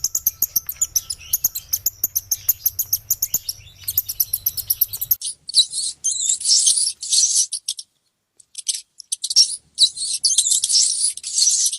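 Small birds chirping: a fast, even run of high chirps, changing about five seconds in to denser twittering with a brief pause.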